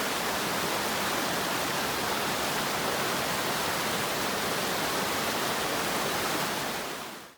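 Steady rush of a creek waterfall, an even wash of water noise that fades out near the end.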